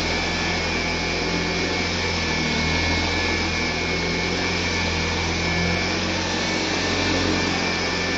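1958 Hoover Convertible Model 31 upright vacuum cleaner running steadily: a constant rush of air with a steady high motor whine, the machine purring smoothly.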